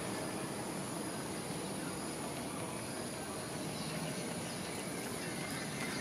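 Steady evening insect chorus: a constant high-pitched buzz over a low, even background rumble.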